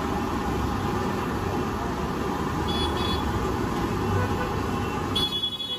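Busy street noise: steady traffic and bustle, with short vehicle horn toots, two brief ones about halfway through and a longer one near the end.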